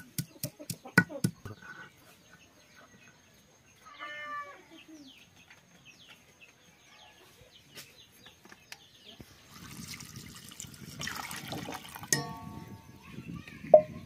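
A blade chopping raw papaya on a stone slab, rapid strikes about four a second that stop about a second and a half in. A bird calls once around four seconds in, and in the last few seconds water splashes and sloshes as hands wash papaya pieces in a steel bowl, with a few clinks.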